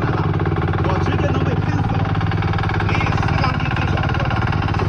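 Engine of a heavy construction machine running steadily, with a low, even, rapidly pulsing rumble.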